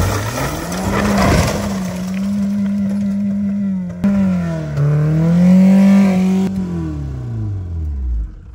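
Old BMW saloon's engine held at high revs with a rock on the accelerator, a steady drone whose pitch dips and recovers around the middle, then winds down and stops near the end. A burst of rough noise about a second in and a sharp knock about four seconds in.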